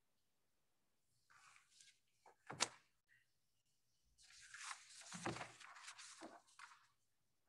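Faint handling noises: a short rustle, one sharp thunk about two and a half seconds in, then a few seconds of rustling from about four seconds in.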